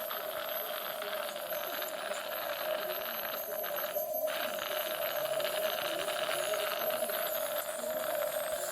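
Dental office equipment running steadily: a hissing rush with a steady hum under it, the hiss dropping out briefly about four seconds in.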